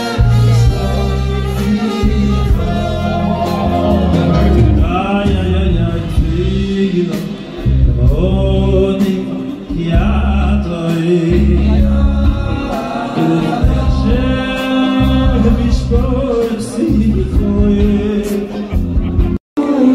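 A man sings a Jewish kumzitz song into a microphone over a PA, backed by live band accompaniment with a heavy bass. The sound cuts out for an instant near the end.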